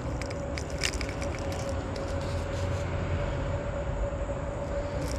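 A motor's steady hum: one constant whine over a low rumble, with a few light clicks and knocks about a second in and near the end.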